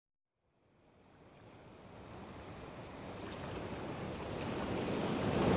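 Ocean-surf sound effect fading in from silence at the opening of a pop track: a steady wash that grows louder throughout, after about a second of silence.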